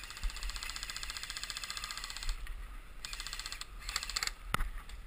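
Airsoft electric guns firing on full auto, a rapid mechanical rattle of shots: one long burst of about two seconds, then two short bursts. A single sharp crack comes near the end.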